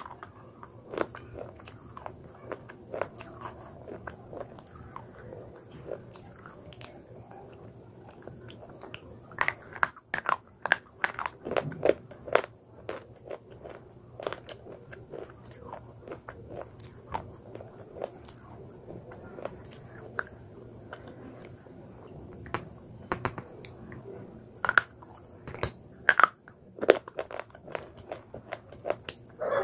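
A person biting and chewing pieces of slate pencil and slate bar close to the microphone: a steady run of sharp, dry crunches, with louder clusters of crunching about ten seconds in and again near the end.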